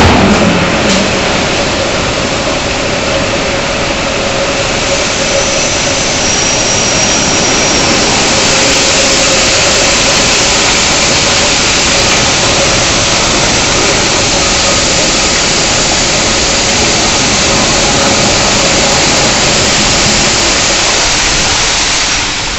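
Coal pouring out of the open bottom-discharge doors of BOBR hopper wagons onto a track-hopper grating: a loud, steady rushing noise, with a faint steady hum under it.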